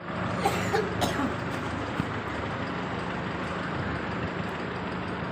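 Steady mechanical running noise with a faint constant hum, with a few short clicks and knocks in the first two seconds.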